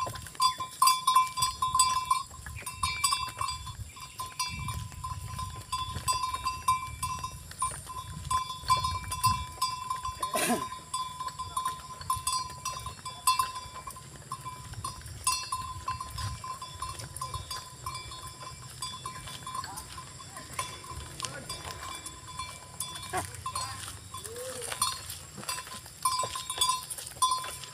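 A small bell on a walking ox rings over and over in an even jingle on one high note, while a loaded wooden ox cart's wheels rumble low on the asphalt road. There is a single sharp knock about ten seconds in.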